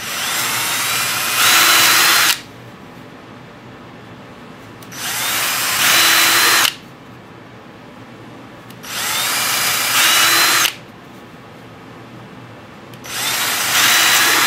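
Cordless drill boring four holes, one after another, through the plywood side of a model airplane's engine box. Each hole takes about two seconds: the motor spins up with a rising whine, then grows louder as the bit works through the wood, and stops.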